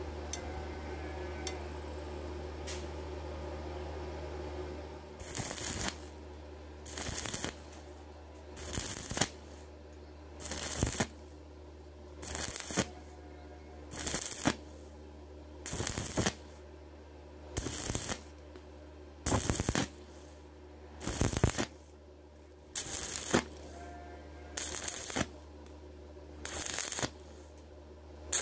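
Stick welding arc from a 2.5 mm electrode at 65 amps on thin square steel tube, crackling and sizzling in short bursts about every two seconds. The arc is struck and broken over and over, stitching the weld in steps so the thin metal does not burn through. Before the first burst there is a few seconds of steady low hum.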